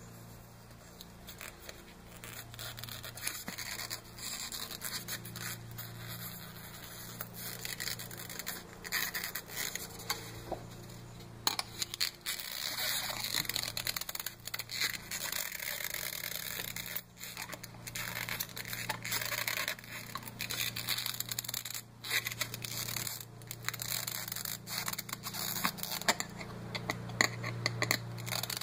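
A metal wire being pushed and worked into a foam model-airplane wing: irregular scraping and scratching of the foam against the wire, with small clicks from handling, over a steady low hum.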